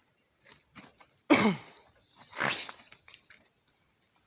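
Two loud, abrupt non-speech bursts from a man's voice about a second apart: a short sound falling in pitch, then a harsh noisy blast.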